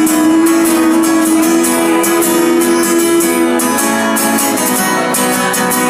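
Acoustic guitar strumming a steady rhythm while a harmonica holds one long note that stops about three and a half seconds in; the guitar carries on alone.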